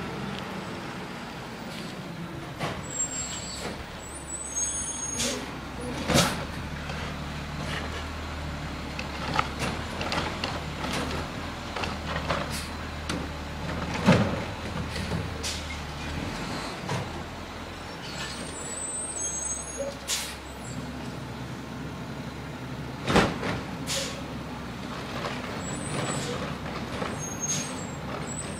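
Garbage truck's diesel engine running steadily as it collects curbside bins, with repeated loud bangs and clunks and a few short high squeals from the truck.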